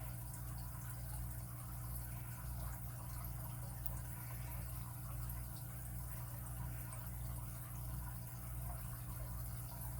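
Faint scattered ticks of a lock pick working the pin stack inside a 5-pin stainless steel padlock, over a steady low electrical hum.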